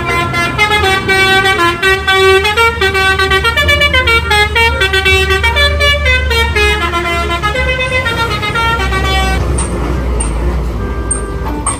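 A bus's Basuri 'telolet' multi-tone horn playing a quick melody of stepped notes over the low, steady running of its engine. The tune stops about nine and a half seconds in, leaving the engine running.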